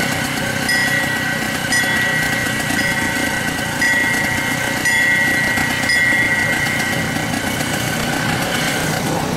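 Narrow-gauge steam locomotive running slowly on the approach, a steady rumbling run with a thin high tone coming and going for most of the time.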